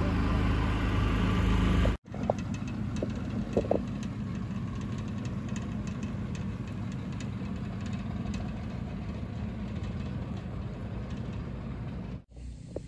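Boat motor running, loud at first. About two seconds in, a cut brings a quieter, steady engine hum with a few faint ticks.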